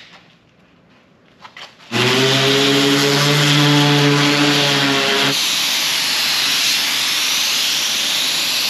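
A few faint scrapes, then an electric random orbital sander runs steadily on the fiberglass plug for about three seconds. It gives way to the steady hiss of compressed air from a gravity-feed spray gun spraying a coat onto the plug.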